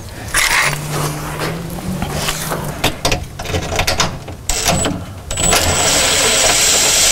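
Makita 18V cordless impact driver running on a 10 mm underbody bolt, a loud rattling spin with a high whine, starting about halfway through. Before it come a low hum and some knocks.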